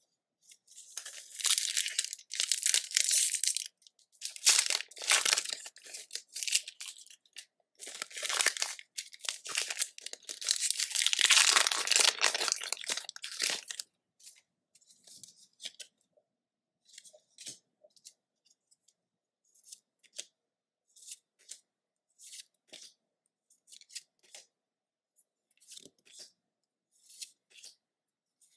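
Pokémon booster pack foil wrapper being torn open and crinkled for the first half, followed by short soft ticks about once a second as the trading cards are handled.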